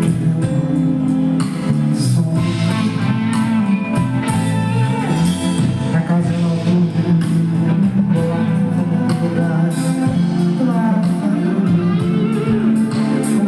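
Live band music, amplified: a loud, steady bass line and guitar under a melody, with a singing voice coming in at times.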